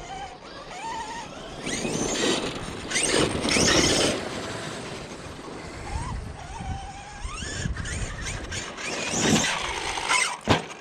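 Electric radio-controlled off-road truck driving on dirt: the motor whine rises and falls with the throttle, the tyres scrabble through bursts of acceleration, and there is a sharp thump of a hard landing near the end.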